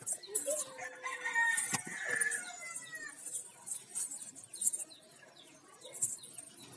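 A rooster crowing once: one long call that starts about half a second in and ends near three seconds in, with small birds chirping around it.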